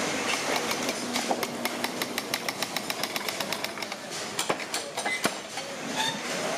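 Paper-tube rolling machine running as it winds kraft paper round a steel mandrel, with a fast, even clicking of about six clicks a second. About four seconds in, the clicking gives way to a few irregular, louder knocks.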